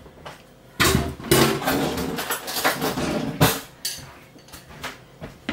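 Kitchen clatter of a bowl and spoon being handled for a few seconds, ending in a sharp knock, then a few light clicks.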